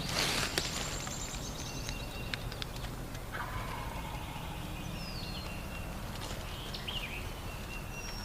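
A wild turkey gobbler gobbling, with small birds chirping and whistling.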